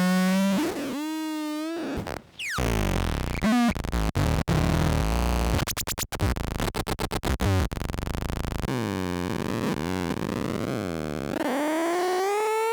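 Lefty's Sound Lab Rumble Noise analog noise synth and fuzz pedal making glitchy electronic sounds: buzzy pitched tones that waver and glide, a falling sweep about two seconds in, then a dense low buzz that stutters and chops on and off in the middle. Near the end the tone rises in a long upward sweep.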